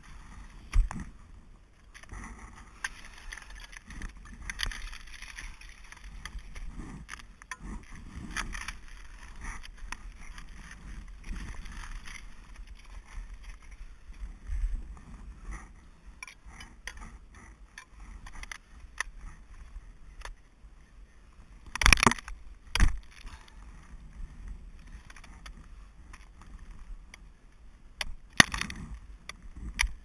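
Ice axes striking and scraping into frozen waterfall ice and snow, making irregular knocks. Two sharp strikes come close together about two-thirds of the way in, and another comes near the end.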